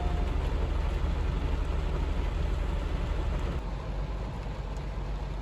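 Steady in-cabin road and engine noise of a 2007 Chevy Malibu Maxx with its 3.5 L V6, driving in rain. A steady tone cuts off right at the start, and the noise eases somewhat about three and a half seconds in.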